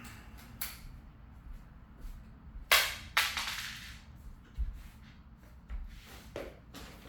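Hard objects knocking and clicking: two loud sharp knocks close together about three seconds in, the second ringing out briefly, among several lighter clicks.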